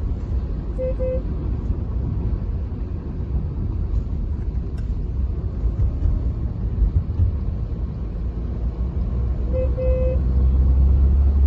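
Cabin noise of a Hyundai Verna 1.6 CRDi four-cylinder turbodiesel sedan on the move: a steady low rumble of engine and road noise, growing louder near the end. Two short beeps sound, about a second in and again near the end.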